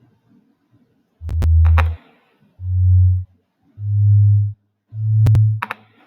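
Four low, pure sine-wave synthesizer notes played one after another, each held for under a second, with sharp clicks alongside the first and last.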